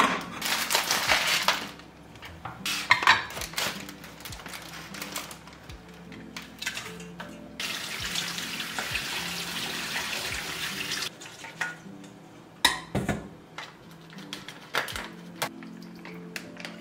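Kitchen tap running for about three seconds, water spraying onto arugula in a stainless-steel colander in a steel sink, with clatters and knocks of kitchenware on the counter before and after.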